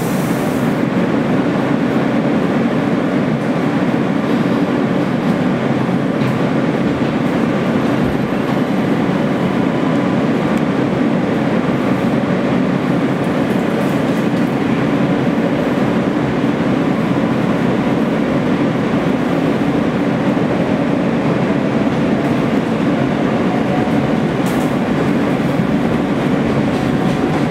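Subway train running steadily along the rails, a continuous rumble with a faint whine that rises slowly over the last few seconds.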